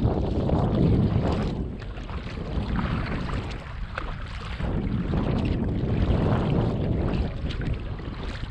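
Wind buffeting the camera's microphone on a kayak at sea, a rough rumbling noise that swells and falls, with light splashing of water against the hull.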